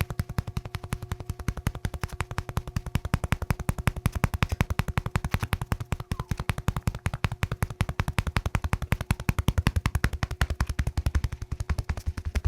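Rapid, evenly spaced tapping of a handheld electric percussion instrument working on the body, over a faint steady hum.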